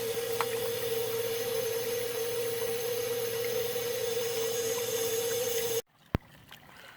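Steady hum with a rushing hiss of water running through the PVC drain line while the washing machine, tub and toilet drain into it. It cuts off abruptly near the end, followed by one sharp click.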